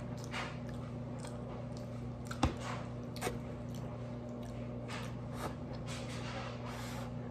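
Close-up chewing and mouth sounds of someone eating fried rice, with scattered soft clicks from a plastic fork working in a foam takeout container. One sharper click comes about two and a half seconds in.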